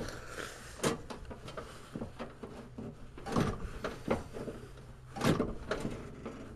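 Several separate clunks and rattles from a Craftsman garden tractor's parking brake lever being slid and worked, about four knocks a second or so apart.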